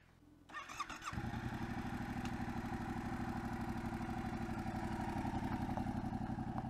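Yamaha Tracer 7's 689 cc parallel-twin engine being started: the starter cranks with a short rising whine, the engine catches about a second in, and it then runs steadily.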